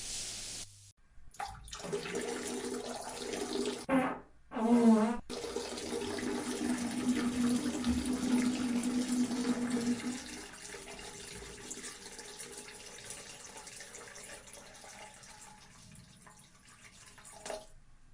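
Fart sound effects: several short buzzy blasts in the first few seconds, a wavering one about four seconds in, then a long drawn-out buzzing one from about six to ten seconds in, over a hissing, watery noise that fades away near the end.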